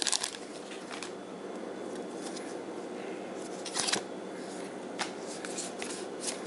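Pokémon trading cards and their booster pack wrapper being handled: short scrapes as the cards slide out of the pack and are squared up in the hand, the clearest about four seconds in, over a steady low room hum.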